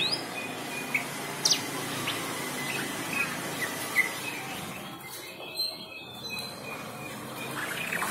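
Birds chirping: scattered short calls and a few quick rising whistles over a steady background hiss.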